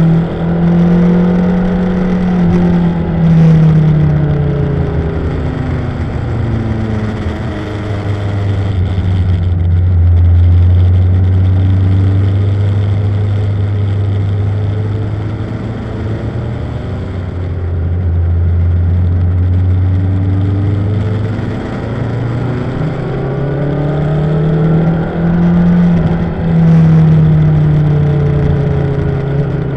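Motorcycle engine heard from on board the bike. Its note drops as the bike slows for a bend, holds low and steady for a long stretch, then climbs again as it accelerates, with a brief dip near the end like a gear change.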